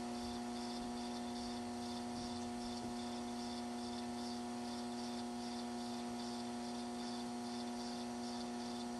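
Steady electrical hum with a faint high pulsing that repeats a few times a second above it.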